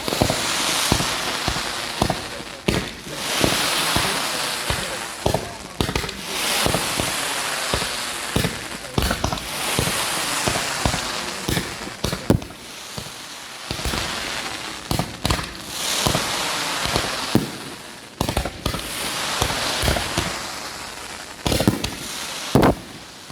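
Fireworks going off: a rapid run of sharp bangs and pops, under waves of crackling hiss that swell and fade every two to three seconds.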